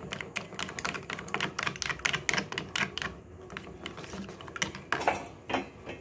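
Eggs being beaten with a plastic spoon in a plastic bowl: a quick run of clicking taps of the spoon against the bowl, several a second, thinning out after about three seconds and stopping shortly before the end.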